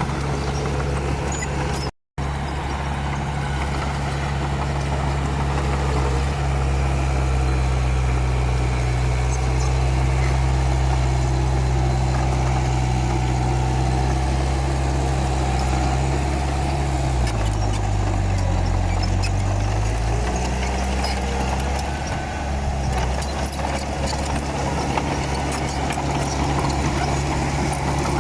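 Komatsu D31P bulldozer's diesel engine running steadily, its pitch sagging for a few seconds about two-thirds through and then recovering, as under load. The sound cuts out for a split second near the start.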